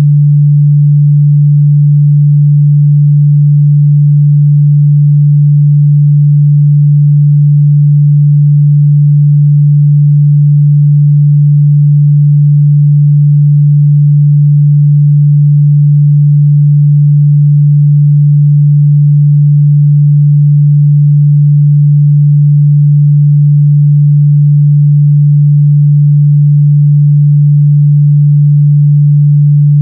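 A steady 146 Hz sine-wave test tone, a pure low hum held at one pitch without change.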